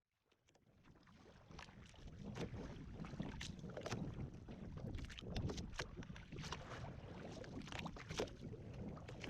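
Water slapping and splashing against a small boat's hull with gusts of wind on the microphone: an uneven wash broken by many short sharp splashes. It fades in at the start.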